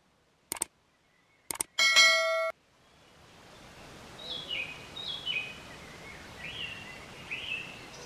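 Two short clicks, then a bright bell-like ding that rings for under a second and cuts off abruptly. Steady outdoor background noise then fades in, with a bird calling repeatedly: short falling notes, then a few rising-and-falling calls.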